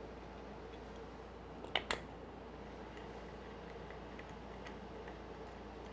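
Two sharp clicks about a fifth of a second apart, roughly two seconds in, then a few faint ticks, over a low steady hum: small hard parts being handled as a wheel is refitted to an RC monster truck's hub.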